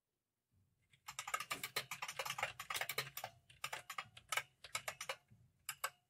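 Typing on a computer keyboard: a quick run of sharp key clicks starting about a second in, with two short pauses, the last few clicks near the end.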